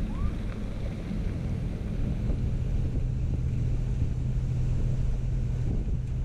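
Wind buffeting the microphone, with a low steady hum underneath.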